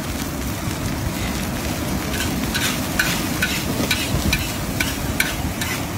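Metal spatula scraping and knocking against a large iron wok as egg fried rice is stirred and sizzles. The knocks start about two seconds in and come about two to three a second, over a steady low rumble.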